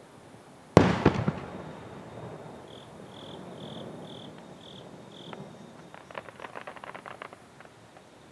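A firework shell bursting with a sharp bang about a second in, followed by a few quick cracks and a rumbling echo that fades away, then a run of small crackling pops near the end.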